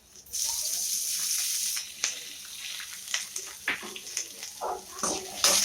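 Oil sizzling in a hot pan, a loud hiss over the first couple of seconds, then a spoon scraping and clicking against the pan as the contents are stirred.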